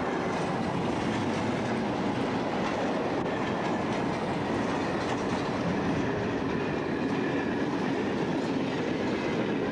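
Container freight train wagons rolling past, a steady rumble and clatter of wheels on the rails.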